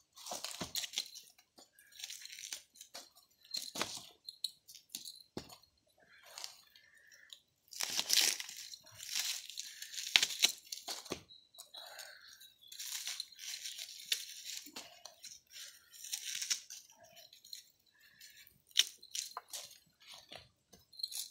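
Dry corn husks being torn and stripped off ears of corn by hand: a string of short, irregular rustling rips.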